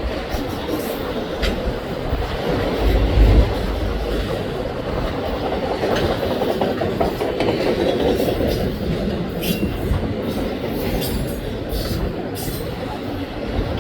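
Auto rack freight cars of a Canadian National train rolling past: a steady rumble of steel wheels on rail, with scattered clicks as wheels cross rail joints.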